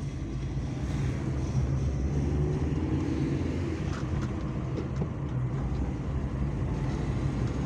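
Volkswagen Fox driving, heard from inside the cabin: steady engine and road noise, with no noise from the front wheel now that the worn brake pads have been replaced.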